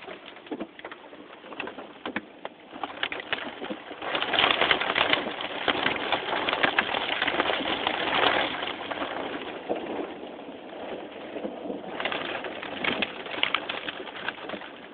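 Heavy rain pelting a car's roof and windows, a dense patter of drops that swells to its loudest about four to eight seconds in, eases, then picks up again near the end.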